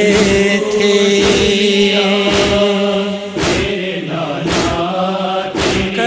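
Noha being sung: a man's voice holds one long note, then carries on more softly, over a steady low drone. A regular beat of about two sharp strikes a second runs underneath.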